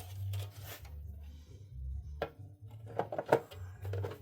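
Plastic taillight parts being handled and pressed together: scattered light clicks and knocks, with a sharp click about two seconds in and a cluster of them around three seconds, as the red backing and inner lens are seated into the outer lens.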